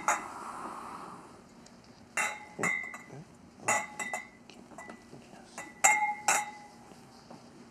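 Stemless wine glasses clinking against each other and the countertop: about seven separate clinks, several left ringing briefly.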